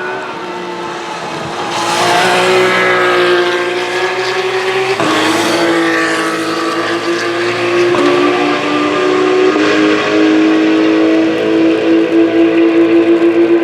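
Racing car engines running at high, steady revs, growing louder over the first two seconds, with a hiss of spray from tyres on the wet track for a few seconds. The engine note changes abruptly about five seconds in, then holds steady with a pulsing beat near the end as more than one engine note overlaps.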